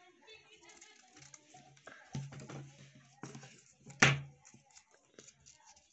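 Quiet handling noises with a few knocks, and one sharp, loud knock about four seconds in, the loudest sound.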